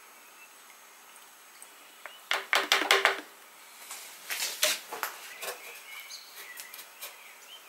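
Clatter and clicks of hard plastic being handled: a coolant bottle and plastic funnel being moved and set down, then a motorcycle's plastic bodywork panel being fitted back. The sounds come in short clusters from about two seconds in, loudest between two and three seconds in, with lighter ticks after.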